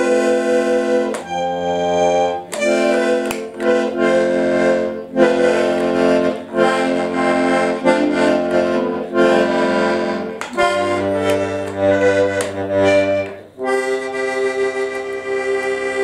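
Hohner button accordion played in chords that change every second or two, with a short click between some of them, ending on one long held chord near the end.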